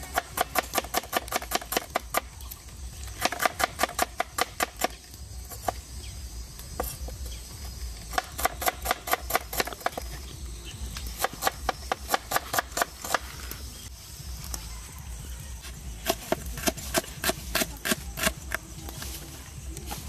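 Cleaver chopping shallots on a wooden cutting board: quick runs of knife strikes, about six a second, in several bursts with short pauses between them.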